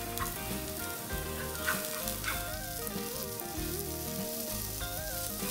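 Chopped green onion sizzling steadily in hot oil in a frying pan as it is stirred, with a few light scrapes or taps. Sliced green bell pepper strips are dropped into the pan in the last seconds.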